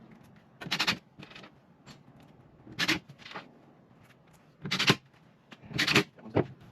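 Handling noises during cabinet assembly: about six short rustling clatters, a second or so apart.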